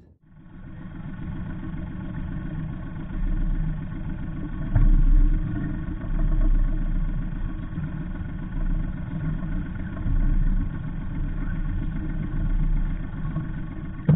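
Sailboat's inboard diesel engine idling steadily.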